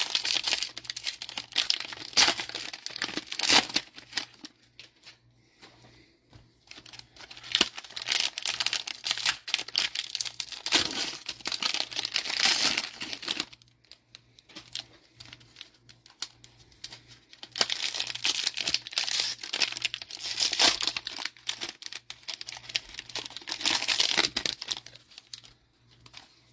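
Foil trading-card pack wrappers (Panini Mosaic NFL cello packs) crinkling as the packs are handled and sorted, in rustling clusters with short pauses between.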